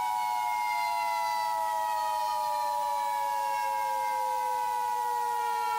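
Emergency Alert System two-tone attention signal: two steady, close-pitched tones just under 1 kHz sounding together without a break. Underneath, a siren-like tone with overtones slowly falls in pitch.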